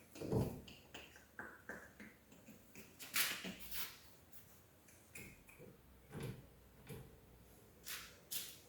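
Faint, scattered clicks and knocks of metal door-lock hardware being handled and fitted into a door, with a short rustle about three seconds in.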